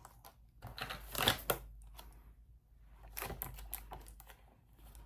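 Two short flurries of light clicking and tapping of small hard objects, about a second in and again about three seconds in.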